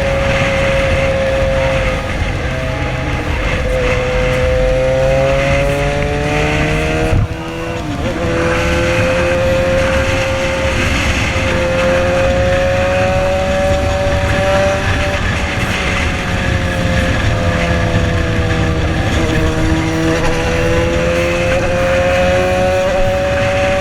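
Yamaha XJ6 inline-four engine running through a custom-made exhaust while riding at speed. The engine note holds fairly steady, with gentle rises and falls in pitch, and a brief drop about seven seconds in.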